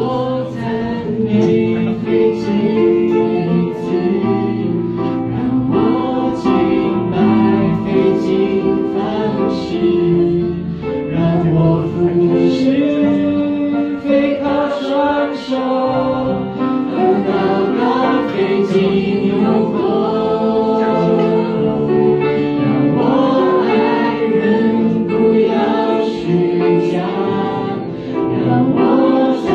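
A man and a woman singing a Chinese-language Christian worship song in duet into microphones, with acoustic guitar accompaniment.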